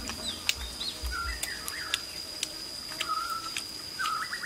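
Outdoor forest ambience: birds giving a few short chirps over a steady high-pitched insect drone, with scattered sharp clicks.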